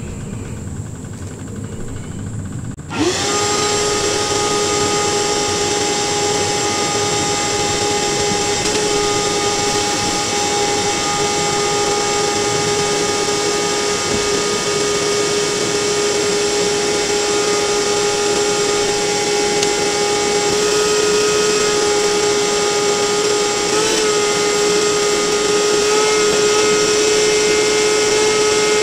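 A motorized cleaning machine switches on about three seconds in and runs steadily at constant speed, a steady whine over a rushing hiss.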